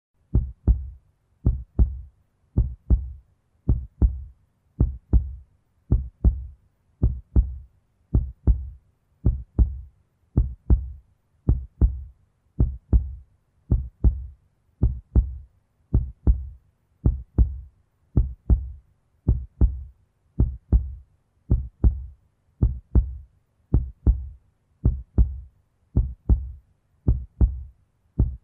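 Heartbeat sound effect: a slow, steady lub-dub, two low thumps close together, repeating a little under once a second.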